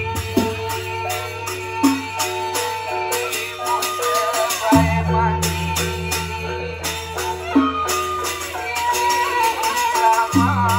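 Gendang beleq ensemble music: bamboo suling flutes carry a held melody over fast, steady cymbal strokes. A deep low tone comes in about halfway through and again near the end.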